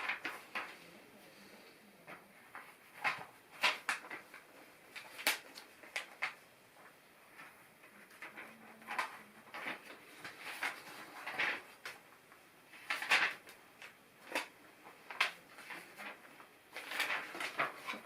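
Scattered light clicks, taps and rustles from handling a LEGO set and its instruction booklet, a few every couple of seconds with quiet gaps between.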